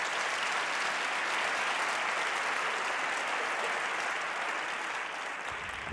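Audience applauding, many hands clapping together, steady and then dying down near the end.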